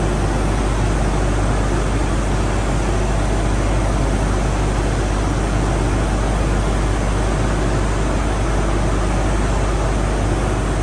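Steady roar of a power plant's circulating-water filter and pipework system running, with a strong low hum underneath and no change throughout.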